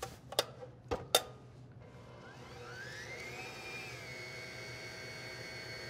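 Electric stand mixer with a whisk attachment: a few clicks and knocks as the head is lowered and locked, the loudest about a second in, then the motor starts with a rising whine that settles into a steady run. It is creaming butter, sugar and sour cream for a cake batter.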